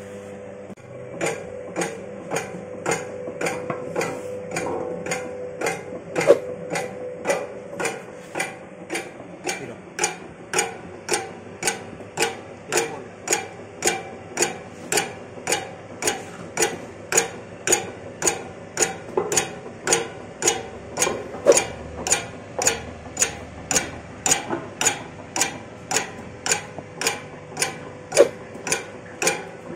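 Electric dough divider running: a steady motor and gearbox hum under an even train of sharp clicks, about three every two seconds, as the cutter chops off each portion of dough at the die plate.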